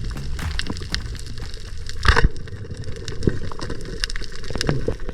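Underwater sound: a steady low rumble with a scatter of small clicks and crackles, and one louder sharp knock about two seconds in.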